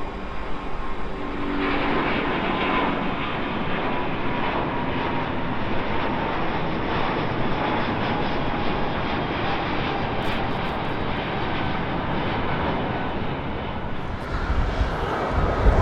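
Airbus A350 airliner passing with its Rolls-Royce Trent XWB jet engines running: a steady rush of jet noise with a faint whine that slowly falls in pitch. A deeper rumble swells near the end.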